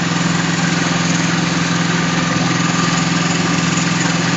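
Concrete mixer truck's diesel engine running steadily, a constant low hum that holds level throughout.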